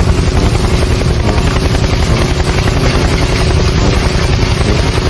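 A loud engine-driven machine running steadily with a fast, even chopping pulse and a held hum.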